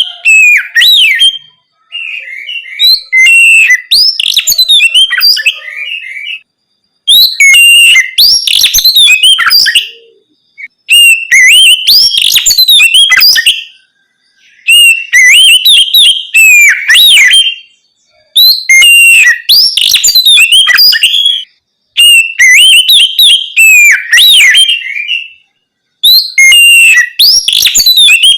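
Oriental magpie-robin (kacer) singing its loud, open song: phrases of rapid whistles and trills, each about three seconds long, separated by pauses of about a second, about seven phrases in all.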